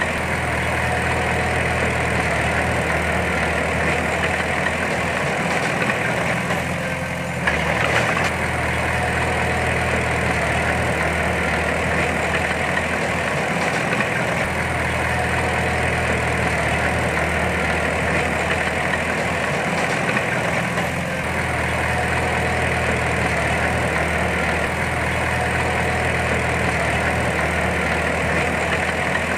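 Heavy diesel earthmoving machine engine running steadily, with a short knock about seven and a half seconds in.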